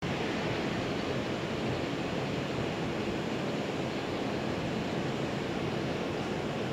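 Steady rushing outdoor noise, even throughout, with no distinct sounds standing out.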